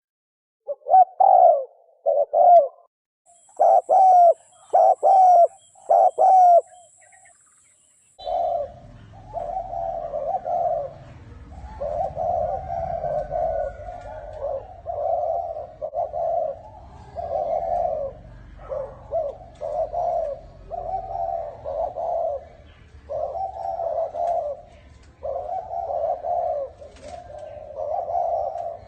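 Spotted dove cooing in quick repeated phrases, the fast 'thổ còi' call. About eight seconds in, after a short pause, the recording changes to a noisier one with a low rumble underneath, and the coos come almost without a break.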